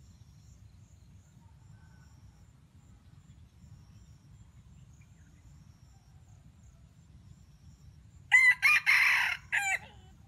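A rooster crowing once, loud and about a second and a half long, broken into a few notes, about eight seconds in.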